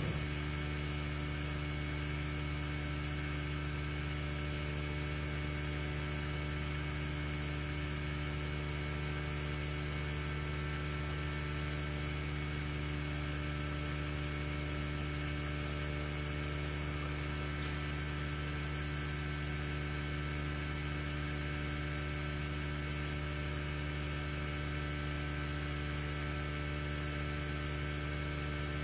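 Steady low electrical hum with several evenly spaced tones, and a faint high whine above it.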